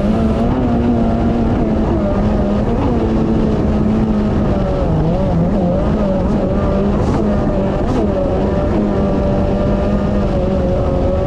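Yamaha GP1800R WaveRunner's supercharged 1.8-litre four-cylinder engine running under way on a test run, with the newly fitted supercharger clutch. It holds a fairly steady pitch, with small rises and dips.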